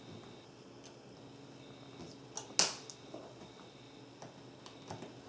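Faint clicks and taps of a small screwdriver working a metal magnetic purse clasp loose, with one sharper click about two and a half seconds in.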